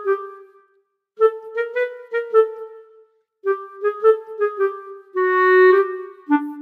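Background music: a light clarinet melody of short, quick notes in phrases separated by brief pauses, with one longer held note near the end.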